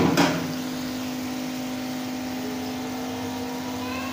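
A spoon knocks once against the aluminium kadhai, then a steady machine hum with a low, even tone runs on.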